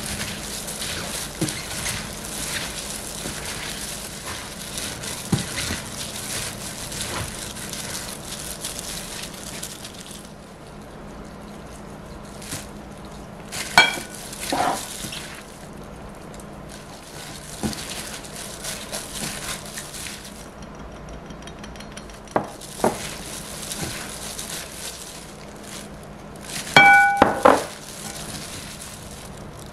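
A plastic-gloved hand tossing julienned radish in a glass mixing bowl makes a steady wet rustling. A couple of sharp glass clinks ring out about halfway through and again near the end.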